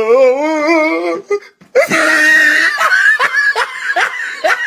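A person laughing hard: a long wavering wail for about a second, then after a short break a run of breathy, wheezing laughs, about three a second.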